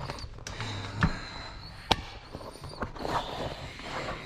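Handling noise as a bicycle inner tube and its valve stem are worked out of the wheel rim: rubbing and light knocks, with two sharp clicks about one and two seconds in.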